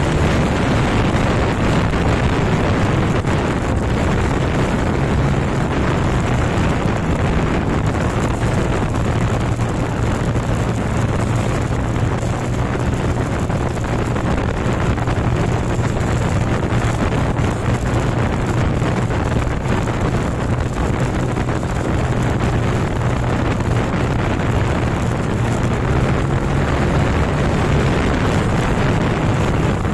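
Motorcycle engine running steadily at cruising speed, about 70 to 80 km/h, under heavy wind rush over the microphone and road noise.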